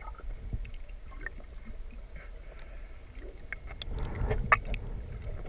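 Underwater ambience picked up by a camera below the surface: a steady low rumble of water with scattered short clicks, most of them about four seconds in.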